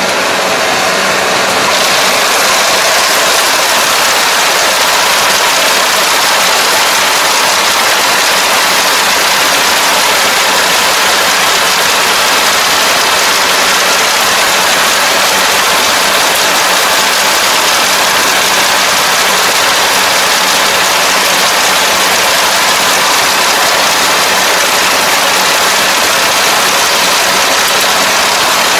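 Combine harvester running steadily at close range, its engine and threshing machinery going under load as the header cuts flattened, lodged rice. A constant loud drone with a low hum, building up slightly in the first couple of seconds.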